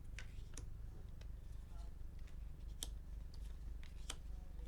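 Tarot cards being handled and flipped through, giving scattered short clicks and slides of card stock over a low steady hum.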